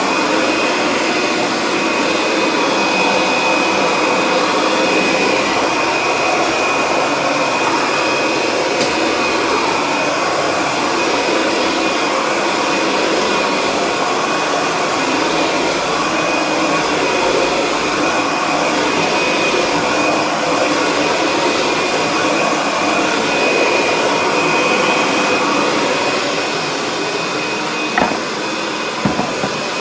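Kirby Sentria upright vacuum cleaner running steadily, with a steady high whine over its motor noise. Near the end the sound dips slightly and two sharp knocks are heard.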